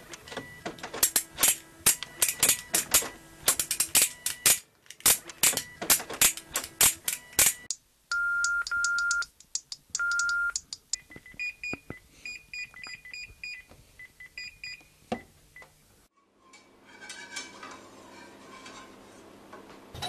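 Fast, dense clicking like keys being typed, with faint held tones under it. About eight seconds in come three long steady electronic beeps, then a run of short, high chirping beeps.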